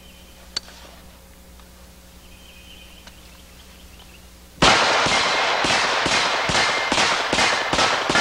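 A Mech Tech CCU carbine conversion in 460 Rowland firing rapid semi-automatic shots, about nine of them at roughly two a second, starting a little past halfway through, each with a sharp report and echo.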